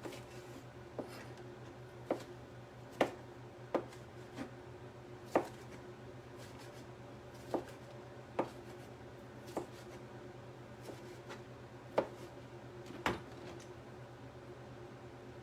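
A kitchen knife chopping vegetables on a cutting board: about a dozen separate, irregular knocks roughly a second apart, over a steady low hum.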